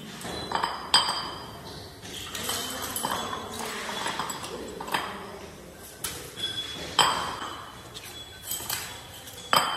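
Cast aluminium motorcycle wheel hubs clinking and knocking against each other as they are stacked into a pile by hand: a sharp metallic clink every second or two, some ringing briefly.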